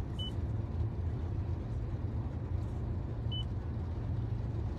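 Two short high beeps from the car's touchscreen infotainment unit as the unpair prompt is confirmed, the first about a quarter second in and the second about three seconds later, over the steady low hum of the idling car in the cabin.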